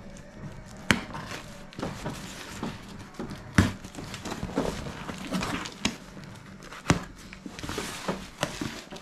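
Cardboard box being opened by hand: packing tape slit with a small blade and the cardboard flaps scraping and rustling, with three sharp knocks of the box or blade against the cardboard.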